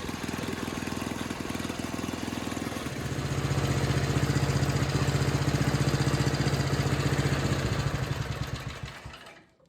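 Gasoline snowblower engine running steadily, growing louder about three seconds in, then dying away and stopping near the end.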